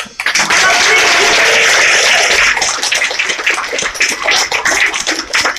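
Audience applauding, starting right after the music stops; the clapping is dense at first and thins into scattered claps toward the end.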